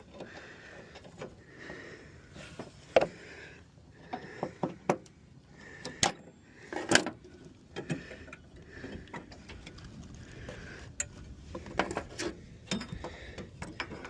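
Metal clinks and knocks from hand tools and mower deck parts being worked while the deck belt tensioner spring and linkages are hooked back up. Scattered sharp clanks, the loudest about three and seven seconds in.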